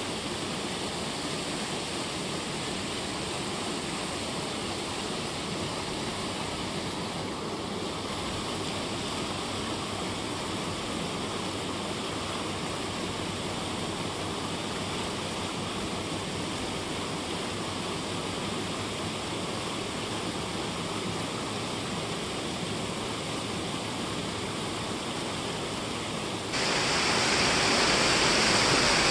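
Water rushing and churning as it pours out of a concrete weir outlet, a steady noise. Near the end it cuts suddenly to a louder, hissier rushing noise.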